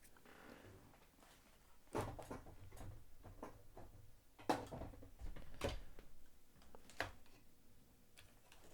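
A few separate sharp clicks and knocks of objects being handled, picked up and set down on a table, with a low hum in the background.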